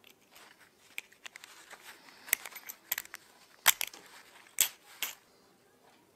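A handful of sharp metallic clicks and clinks as a threaded steel rod is handled inside a brass air-hose quick coupler. The loudest clicks come in the second half, a little under a second apart.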